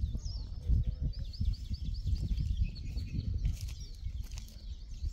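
Wind rumbling on the microphone, with a small bird singing a quick run of high, repeated chirps in the first half and a few more high notes later.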